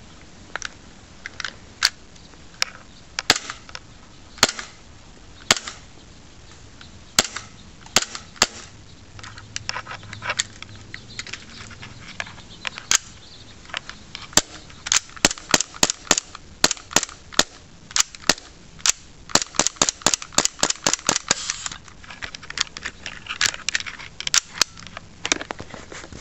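KJW Glock 23 gas blowback airsoft pistol firing: sharp cracks of gas shots with the slide cycling. Single shots about a second apart at first, then quick strings of several shots a second in the second half.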